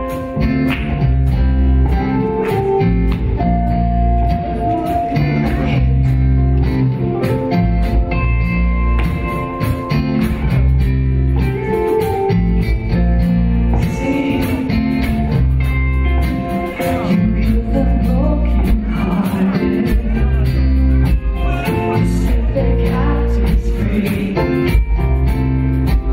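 Live contemporary worship band music led by guitar over a steady bass, with voices singing in the second half.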